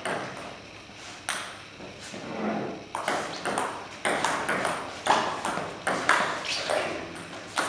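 Table tennis ball being hit back and forth, clicking off the bats and the table, with a short ring of hall echo after each knock. A couple of single knocks come in the first seconds, then a rally from about three seconds in, with a knock roughly every half second.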